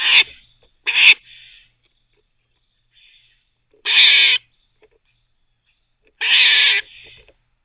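Eastern gray squirrel barking: four hoarse calls, two short ones at the start and about a second in, then two longer drawn-out ones about 4 and 6 seconds in.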